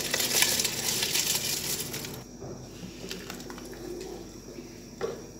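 Soaked rice poured from a container into a pot of boiling water: a rush of splashing and pattering grains for about two seconds. Then a wooden spoon stirs the rice in the pot, with a couple of knocks against the pot.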